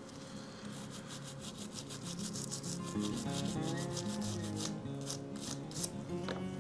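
Quick back-and-forth rubbing strokes, several a second, on a die-cast metal toy body being hand-polished. Background guitar music plays underneath.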